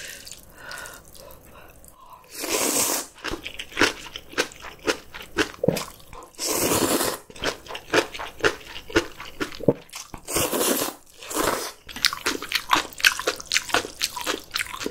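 Close-miked eating of noodle soup with kimchi: a few long slurps of noodles, the first about two seconds in, with crisp crunching and wet chewing of kimchi between them.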